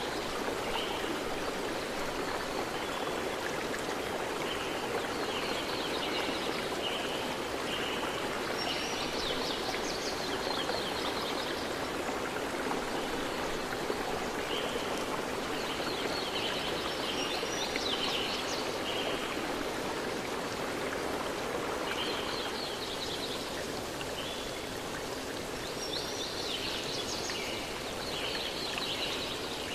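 Running stream with birds singing, short bursts of high chirps every few seconds over the steady rush of water.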